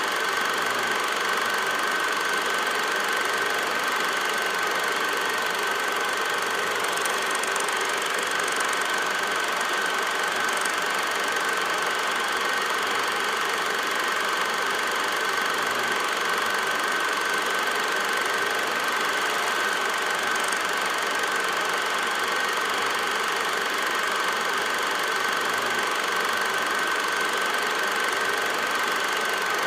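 Film projector running: a steady mechanical whirr and hiss under one constant high whine.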